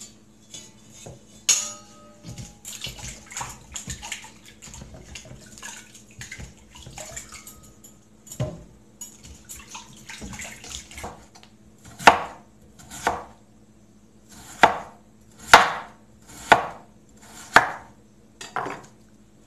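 Peeled potatoes being rubbed and sloshed in water in a stainless steel bowl, with a clink against the metal about a second and a half in. Then a knife slices potatoes against a wooden cutting board in sharp cuts, about one a second.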